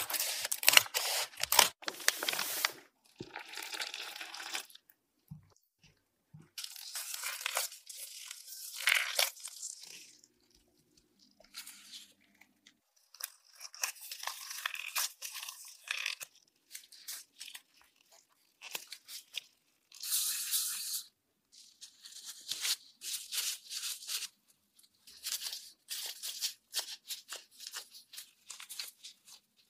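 Close-up food-prep sounds with no talking: scissors snip and crackle through a plastic packet in the first few seconds. After that come separate bursts of rustling and crinkling from disposable plastic gloves as dough is worked by hand, with short quiet gaps between them.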